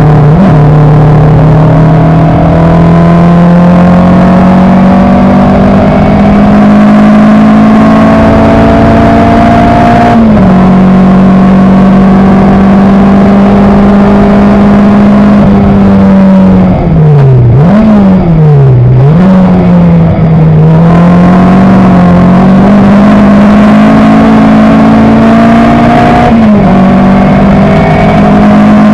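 Coventry Climax FWA four-cylinder engine of an Elva MkIV sports racer heard on board at racing speed. It climbs through the revs with upshifts just after the start and about ten seconds in. A little past halfway its pitch falls and rises twice, then it pulls up again with another upshift near the end.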